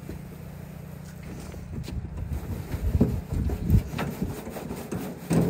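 Loose compost being poured into a wooden raised garden bed: irregular scraping and soft thuds, heaviest around the middle and again near the end.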